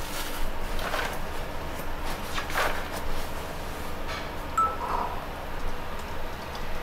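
Plastic bag rustling and crinkling in short bursts as a whole fish is pulled out of it, with one short beep about four and a half seconds in, over a steady low kitchen hum.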